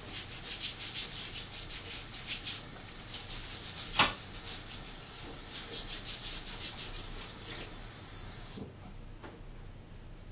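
Tap water running into a kitchen sink while a sweet potato is scrubbed under it with a potato scrubber, the brush strokes coming several times a second, with one sharp knock about four seconds in. The water stops a little over eight seconds in.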